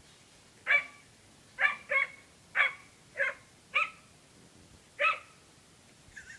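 A dog barking: seven short barks, spaced unevenly.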